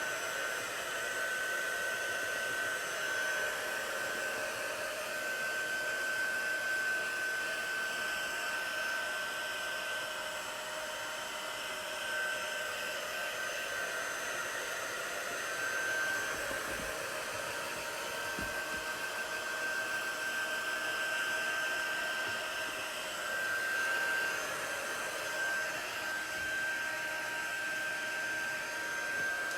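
Small handheld craft dryer blowing steadily, with a constant high whine over the airflow, drying freshly applied chalk paste. It is a quiet little dryer.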